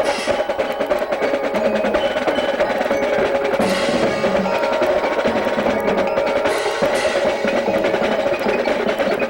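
Marching band music with busy percussion: rapid drum strokes over a long held note.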